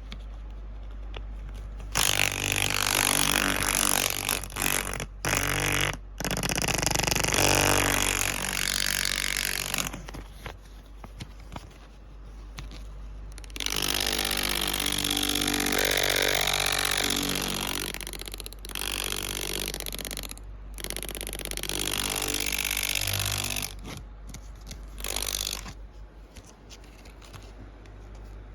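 A card held against a turning bicycle wheel's spokes, flapping fast and making a buzzing, motorbike-like rattle. It comes in two long spells, the first about two seconds in with a few brief cut-outs, the second starting about halfway through, then fades near the end.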